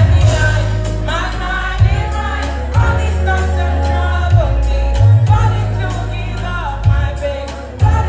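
Live concert music heard from the crowd: a singer sings a sliding melody over a band, with deep held bass notes that change every second or two and regular cymbal ticks.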